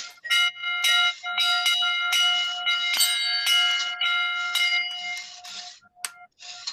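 A metal triangle and other found household objects played together at once: many quick strikes over a steady ringing metallic tone, heard through a video call and cutting out for a moment near the end.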